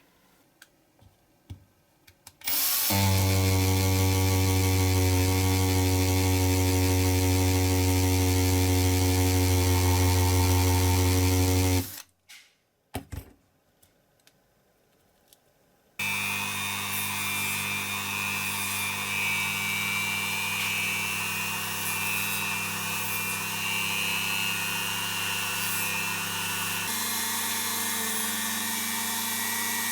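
A small electric power tool runs steadily for about nine seconds and cuts off, followed by a few clicks. Then a power tool starts again, running with a high whine, and its pitch shifts near the end.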